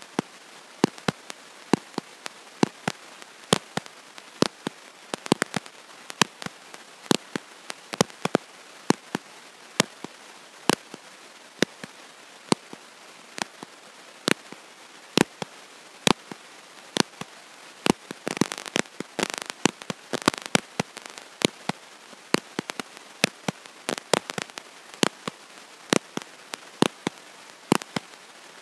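Dense, irregular clicking and crackling, several sharp clicks a second over a faint steady hiss, with no clear speech: noise on a faulty audio track rather than the room's own sound.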